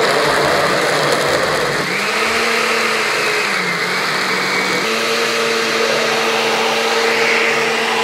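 Glass-jar countertop blender running, liquefying chopped carrots with oil, eggs and orange juice. A loud, steady motor whine whose pitch shifts slightly about two and five seconds in.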